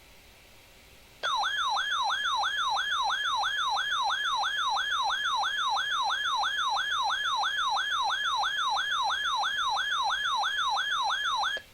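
Weather radio receiver's alert siren going off for a received warning: a loud, rapid warble sweeping up and down about three times a second. It starts about a second in and cuts off suddenly near the end.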